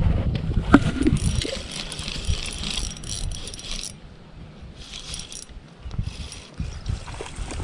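Fishing reel cranked to retrieve line, a whirring, clicking run of a few seconds with a shorter burst of reeling near the middle, over low rumbling handling and wind noise on the microphone.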